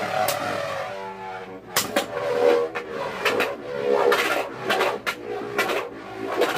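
Two Beyblade Burst spinning tops, Epic Evipero and Lost Luinor, whirring as they spin in a plastic stadium and clacking together again and again, roughly once or twice a second.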